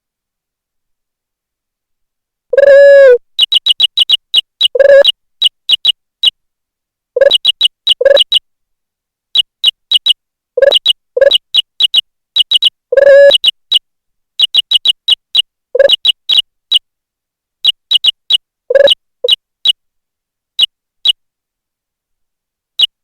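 Jingle Keyboard software's synthetic key-press sound effects: a short high beep for each keystroke in an irregular typing rhythm, with now and then a lower, longer tone. They start about two and a half seconds in.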